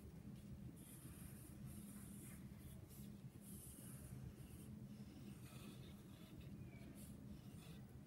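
Wooden pencil scratching faintly on paper in short, repeated strokes as it traces around letters to make outlined bubble letters, over a steady low hum.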